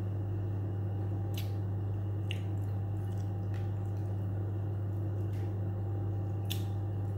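Steady low hum throughout, with a few faint clicks and wet squishy sounds of someone eating with their fingers: picking at fried fish and chewing.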